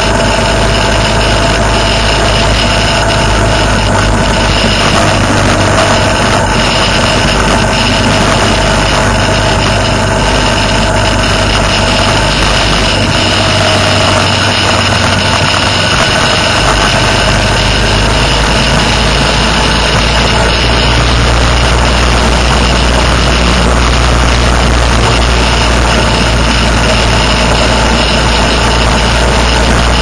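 Motorcycle engine running steadily at highway cruising speed, with wind and road noise rushing past, heard from on board the moving bike.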